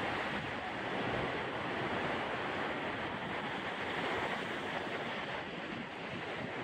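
Steady rush of ocean surf on a sandy beach, mixed with wind blowing across the microphone.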